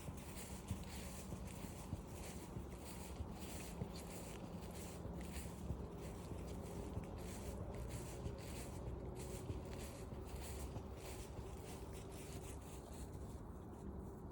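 Footsteps on a forest trail at a slow walking pace, about two steps a second, stopping shortly before the end.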